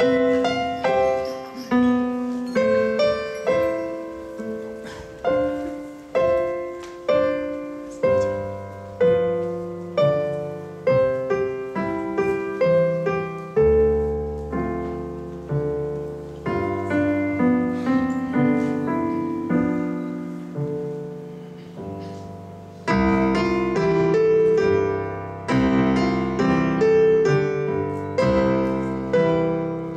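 Piano music in a steady rhythm, each struck note or chord fading before the next, at about two a second. About three-quarters of the way through it becomes louder and fuller.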